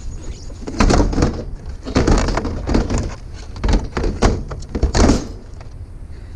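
Discarded curbside items being picked up and handled: a run of clattering knocks and rattles that starts about a second in and stops near the five-second mark.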